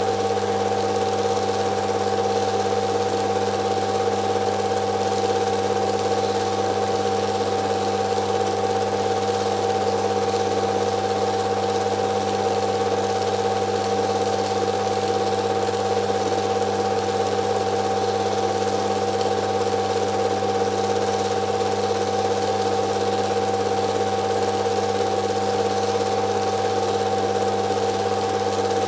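Steady mechanical whirring of a film projector running, a constant hum with a hiss above it that does not change.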